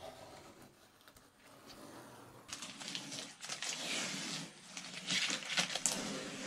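Blue masking tape being peeled off and crumpled into a ball by hand, rustling and crackling, louder from about two and a half seconds in.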